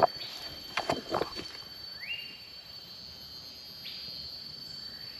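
Rainforest insects making a steady high-pitched drone, with a call that rises and then holds about two seconds in. Two or three short crunches in the first second and a half.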